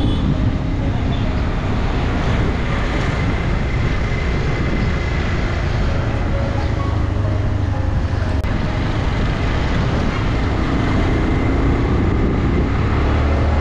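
Motorcycle riding on a street: its engine running steadily under a constant rush of wind on the microphone, the low engine drone growing stronger around the middle and again near the end.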